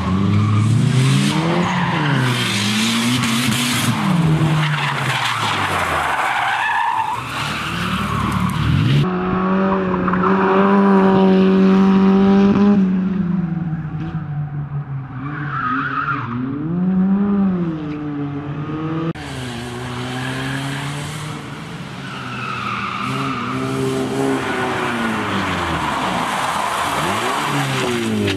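Rally sprint cars driven hard on tarmac: engines revving up and down through gear changes and corners, with tyres squealing and skidding. Near the middle one engine holds a steady high-rev note for a few seconds.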